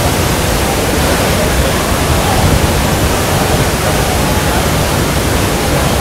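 Waterfall in full flood after heavy rain, a huge volume of muddy water pouring over rock: a loud, steady rush of water.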